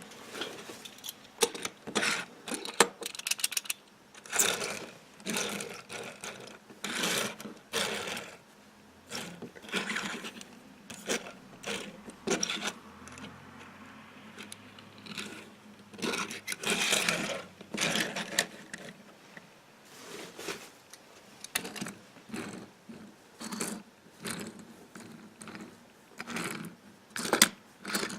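Small diecast toy cars being handled and set down, with irregular clinks, clicks and short scrapes.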